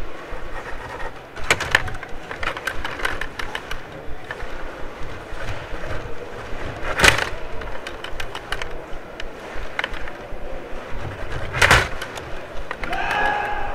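Rod hockey table in play: a steady clatter of control rods sliding and turning and plastic players and puck clacking. Three louder sharp knocks stand out, about one and a half seconds in, midway, and near the end.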